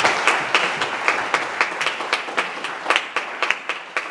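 Congregation applauding, the applause thinning and dying down until a few people keep clapping in a steady rhythm of about four claps a second.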